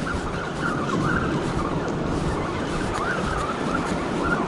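Wind rushing on the microphone over Pacific surf, with a faint wavering whir throughout from a spinning reel being cranked as a fish is reeled in on a bent rod.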